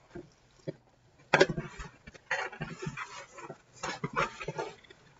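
A cardboard sneaker box being pulled and torn open by hand: irregular rips and rustles in three or four short bursts starting about a second and a half in, with some huffing effort.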